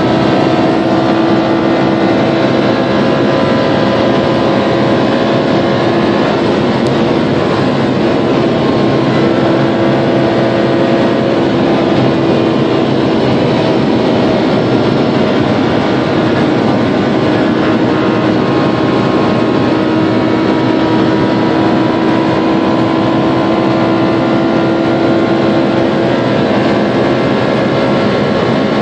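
Cabin noise of a Lamborghini Huracán travelling at over 300 km/h in seventh gear: its V10 engine held at steady high revs under a loud, constant rush of wind and tyre noise.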